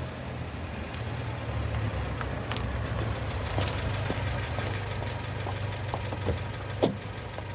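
Car engine idling steadily, with scattered small ticks and a sharp click near the end as the car's door latch is opened.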